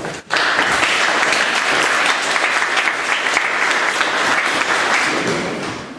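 Audience applauding a speaker at the end of her talk, steady clapping that dies away near the end.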